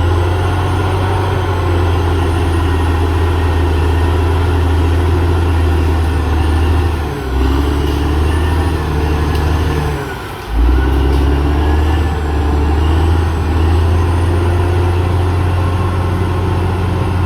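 CAT D6R XL bulldozer's diesel engine running steadily under work. The engine note drops briefly about seven seconds in, then falls away more deeply around ten seconds and comes straight back up.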